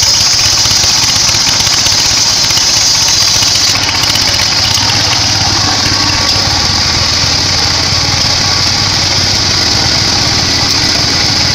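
Sawmill band saw running steadily: a constant high whine over a low engine drone, with a slight change in tone about four seconds in.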